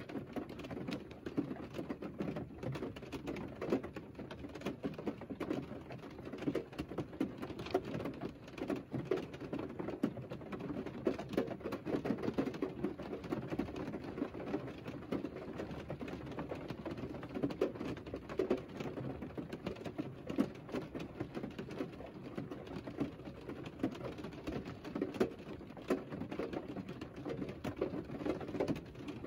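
Rain pattering on a car's roof and windows, heard from inside the cabin: a dense, uneven patter of drops.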